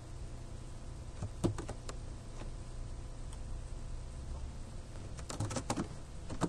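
Computer keyboard typing: a few scattered keystrokes about a second and a half in, then a quick run of keystrokes near the end, over a low steady hum.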